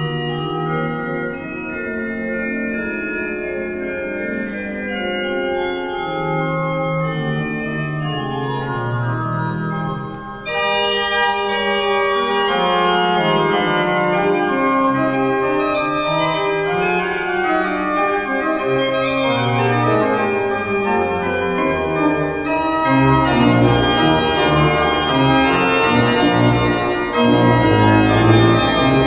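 Church pipe organ playing a slow piece in several voices with held chords. About ten seconds in it gets louder and brighter, and deep bass notes come in strongly near the end.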